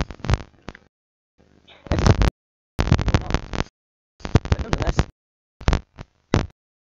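Rustling and knocking from a Santa hat being pulled on and adjusted over a headset, heard in short broken bursts with dead silences between them: the recording keeps dropping out.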